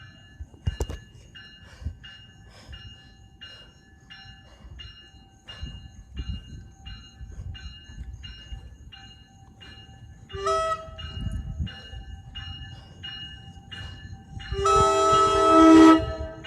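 NJ Transit train horn: a short blast about ten seconds in, then a longer, loud blast near the end, sounded in answer to a railfan's horn signal. Under it is train rumble with a faint regular tick about every two-thirds of a second.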